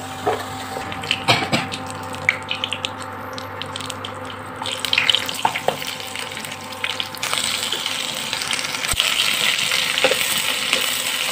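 Spatula knocking and scraping in a nonstick pan as fried yam pieces are lifted out onto a steel plate. About seven seconds in, hot oil starts sizzling steadily as sliced onions and whole spices are stirred in.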